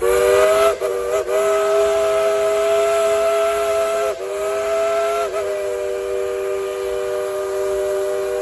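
Steam whistle of the Dollywood Express locomotive No. 70 blown in one long blast, several tones sounding together over a steam hiss, wavering briefly in pitch a few times. It is blown as a thank-you for the crowd's applause.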